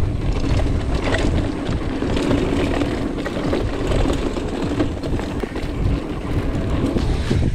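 Vitus Nucleus mountain bike rolling fast down a packed-dirt trail: a continuous rumble of knobby tyres on dirt and leaves, with small knocks and rattles from the bike over bumps and wind buffeting the microphone.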